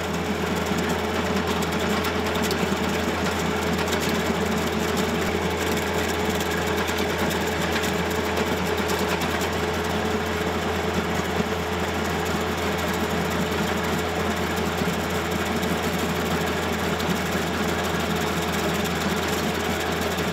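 Baumalight 1P24 tractor PTO-driven stump grinder running steadily, its toothed cutter wheel chewing down into a tree stump, with the tractor engine working under load.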